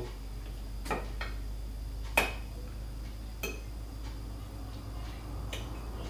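A metal fork clinking against a ceramic serving platter as it pulls tender lamb shank meat off the bone: five separate clicks, the sharpest about two seconds in.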